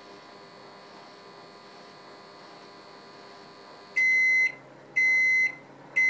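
Samsung microwave oven running with a steady hum that stops about four seconds in, followed by two loud, high half-second beeps a second apart: the end-of-cycle signal that the cooking time is up.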